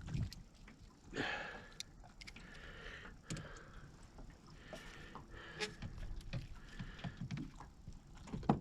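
Scattered light knocks, clicks and brief rustles as a freshly landed fish and the fishing tackle are handled, with a few low thumps.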